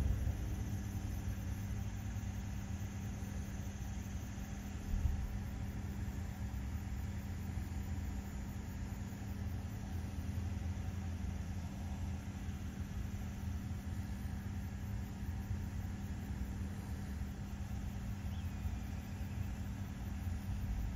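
Large LNG carrier's engines making a steady low drone, with an uneven low rumble beneath.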